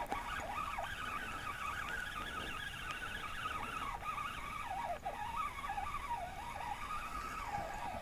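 Spinning fishing reel whining as a hooked perch is fought on the line, its pitch wavering continually up and down.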